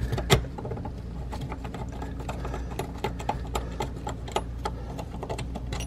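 Scattered small clicks and light scraping of hand work with a screwdriver on the old faucet's mounting screw under the sink, over a low steady hum.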